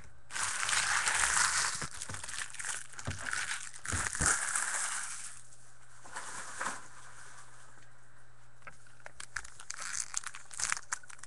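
Trading card pack wrapper crinkling and rustling as it is handled and opened by hand, with a few sharp clicks near the end.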